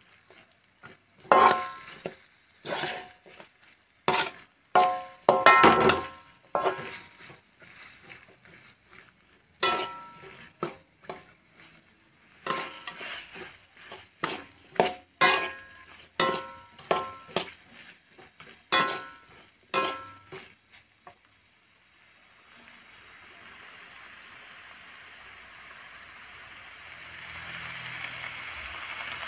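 Metal spatula scraping and knocking against a wok while stir-frying spice paste and diced vegetables, in quick irregular strokes that each ring briefly. The strokes stop about 21 seconds in, leaving a steady sizzle of the paste frying that grows a little louder near the end.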